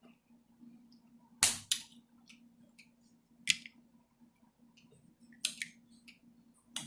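Snow crab shells cracking and snapping as the legs are broken open: about six sharp, irregular cracks, the loudest about a second and a half in, with a faint steady hum beneath.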